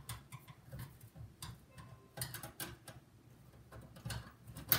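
Screws being unscrewed from the floppy drive's mounting in a metal PC case: a run of small, irregular clicks and ticks, with a sharper, louder click near the end.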